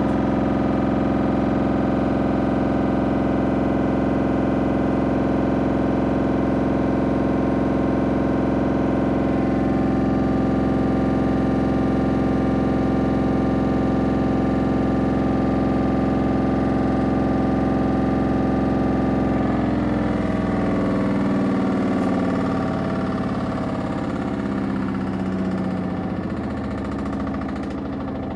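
Samsung front-loading washing machine spinning its drum with a very loud rattle and a steady machine tone. About twenty seconds in, the steady tone breaks up into an uneven, wavering sound and gets a little quieter. The owner does not know the cause of the rattle.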